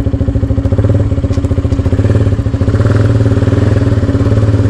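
Motorcycle engine running steadily at low speed, an even, rapid pulsing note heard close up.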